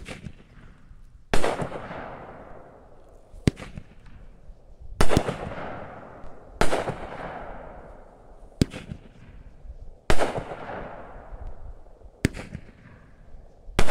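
Raccoon Fireworks Cluster Bomb 500g consumer firework cake firing its willow and horsetail shots one at a time. There is a sharp report about every one and a half to two seconds, nine in all, and several of them trail off slowly.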